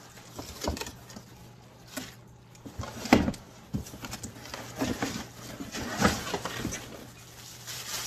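Cardboard packing and plastic wrap rustling and crinkling in irregular bursts, with a few short knocks, as a frying pan is pulled out of its shipping box and unwrapped.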